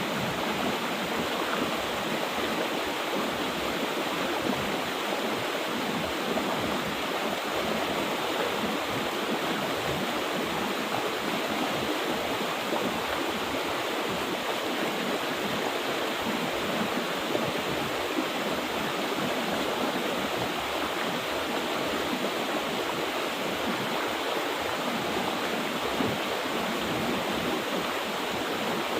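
Mountain river water rushing steadily over rocks.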